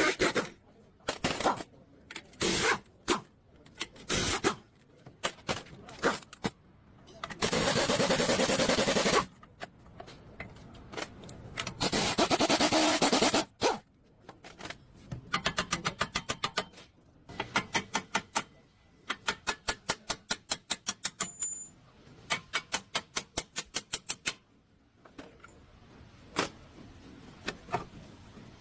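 Mechanic's tool noises: sharp metallic clicks and runs of rapid, even ratchet-like clicking at about four to five a second, with two loud rasping bursts, each about two seconds long, around eight and twelve seconds in.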